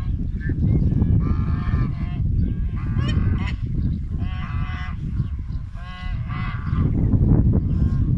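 A flock of white domestic ducks calling again and again, short nasal honking calls coming one after another over a steady low rumble.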